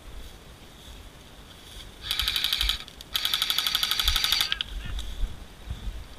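Airsoft electric rifle firing two full-auto bursts: a short burst about two seconds in, then a longer one of just over a second right after, each a fast, even rattle of shots.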